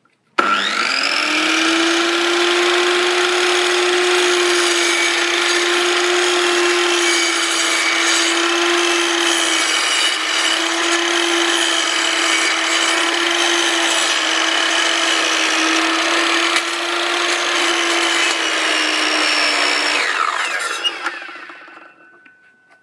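Electric mitre saw starting up with a rising whine, running steadily as it cuts through a wooden framing beam, then spinning down near the end.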